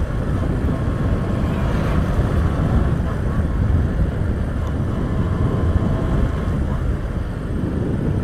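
Motorcycle engine running steadily while riding at low speed, with wind rumbling on the microphone.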